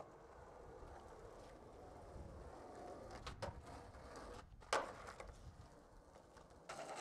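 Skateboard wheels rolling on asphalt with a low rumble, a few light clicks of the board, and one sharp loud clack a little past the middle as the board hits the ground or a ledge.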